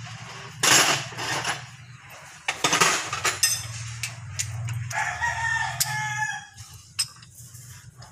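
A long bird call with a held, pitched tone from about three and a half to six seconds in, over a steady low hum. Two loud, sharp clattering hits come in the first three seconds.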